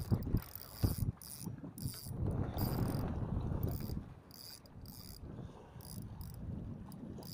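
Spinning reel's drag buzzing in repeated short bursts, stopping and starting, as a hooked fish pulls line off the spool. A low rumble of wind and water lies underneath, heavier in the first half.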